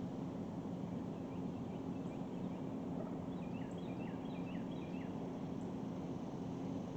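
A bird calling a quick run of about half a dozen short notes with a downward hook, a few seconds in, over a steady low hum and a wash of outdoor noise.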